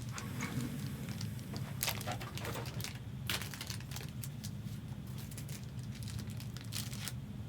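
Plastic card sleeves being handled: scattered rustles and a few sharp crinkles and clicks, over a steady low hum.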